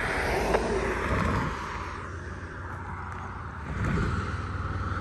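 Steady road traffic noise, a low rumble with hiss, swelling as a vehicle passes about a second in and again near the end.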